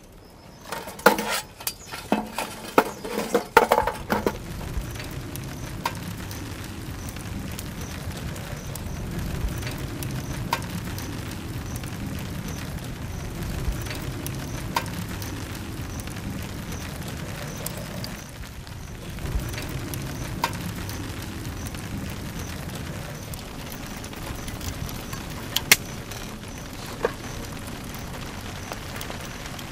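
Burning lump charcoal tipped out of a metal chimney starter, the lumps clattering and knocking against the metal for a few seconds. After that a steady low background, with a few faint clicks.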